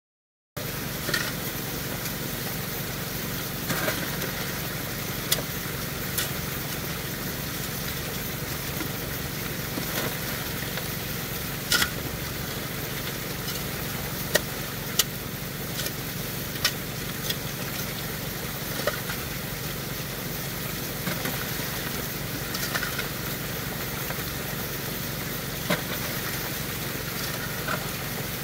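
Small gas engine of a high banker's water pump running steadily. A dozen or so sharp clanks at irregular intervals, from a shovel and rocky pay dirt striking the metal hopper.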